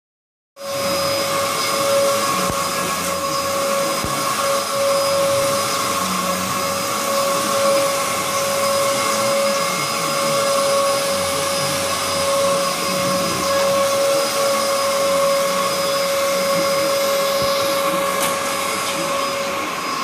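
Upright vacuum cleaner running on carpet: a steady motor whine that holds one pitch, over a constant rush of air.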